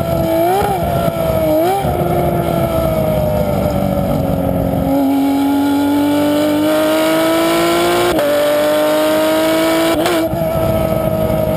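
V8 race car engine running at high, fairly steady revs, with short throttle blips about a second in and again near two seconds. The pitch then sags slowly and climbs again, with another quick blip near the end.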